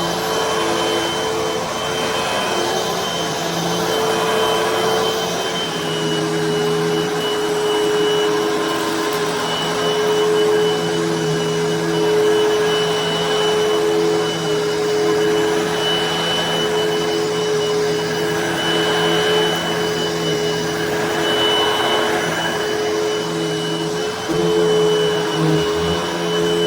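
Hoover vacuum cleaner running steadily on carpet: a motor hum with a thin high whine, its loudness rising and falling a little, and its pitch shifting slightly about six seconds in.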